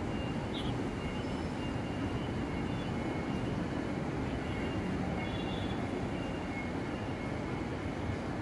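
Steady outdoor city background noise: a low, even rumble with no distinct events.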